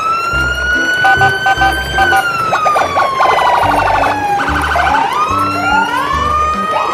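A wailing siren that rises, holds, falls slowly, then rises again, over background music with a steady beat.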